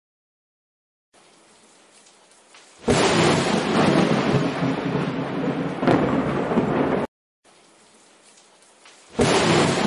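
Thunderstorm: heavy rain with thunder. A faint hiss swells suddenly into loud rain and thunder about three seconds in, cuts off abruptly about seven seconds in, then the faint hiss and the loud rain and thunder start again near the end.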